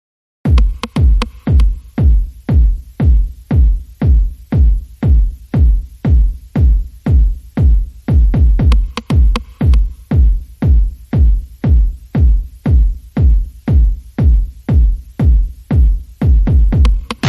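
Electronic background music with a heavy kick drum beating about twice a second, starting about half a second in.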